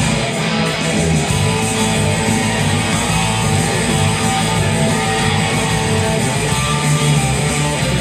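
Electric guitar playing an instrumental surf rock tune, with a steady bass line underneath.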